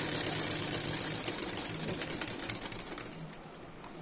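Domestic sewing machine stitching a seam with a rapid, even run of needle strokes, slowing and stopping about three seconds in, then a few light clicks near the end.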